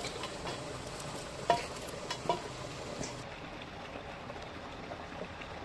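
Garlic being peeled by hand over a brass pot: a few light clicks and taps, the sharpest about a second and a half in, over a steady faint hiss.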